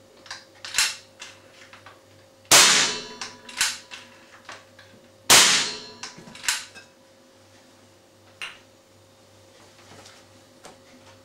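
Two unsuppressed shots from an FX 2000 .177 (4.5 mm) pre-charged air rifle, about three seconds apart, each a sharp crack with a short ring. A fainter click follows about a second after each shot, and there are a few quieter clicks from handling the rifle.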